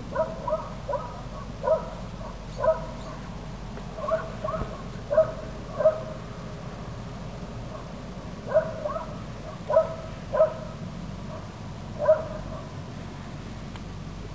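Peacock giving short repeated calls, about a dozen in all, in two runs with a pause of about two seconds between them.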